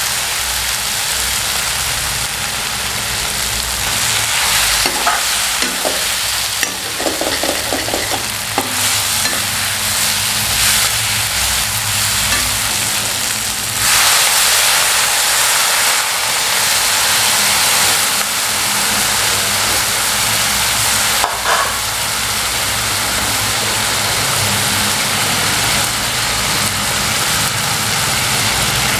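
Marinated chicken and onions sizzling as they fry in a metal kadai on a gas stove. A metal spoon stirs, scraping and tapping against the pan a few times in the first third. The sizzle grows louder about halfway through.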